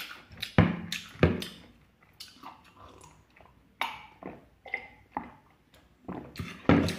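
A person eating fried pork close to the microphone: irregular sharp bites and chewing sounds.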